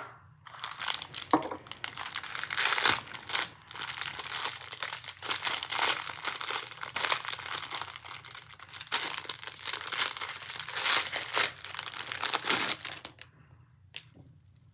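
Packaging crinkling and tearing as a mail package is opened by hand: a dense run of crackles that stops a little over a second before the end.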